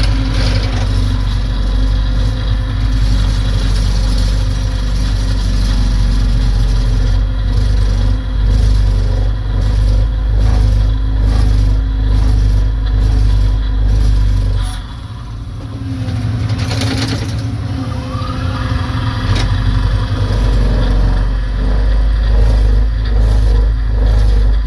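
A heavy construction machine's diesel engine running under load, with a run of regular knocks and scrapes in the middle. The engine briefly drops off about fifteen seconds in, then picks up again.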